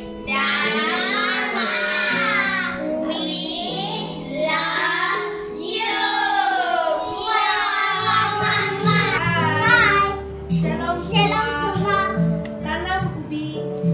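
A song: a high voice sings long, wavering notes over sustained accompaniment, and about eight seconds in a steady plucked rhythm with a bass line joins.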